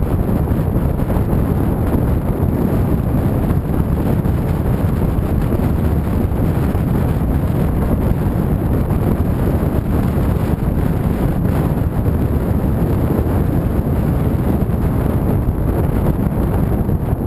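Steady wind buffeting the microphone of a camera on a moving motorcycle, with the rumble of the ride underneath.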